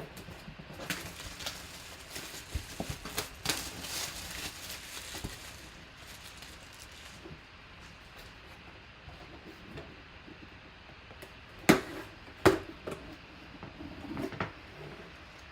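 Handling noises: scattered light rustles and taps, busier in the first few seconds, with two sharp clicks about two-thirds of the way through.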